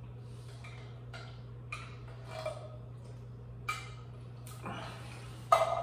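A metal spoon clinking and scraping in a steel food can as cold chili is eaten from it, with a few short clinks and a louder clatter near the end, over a steady low hum.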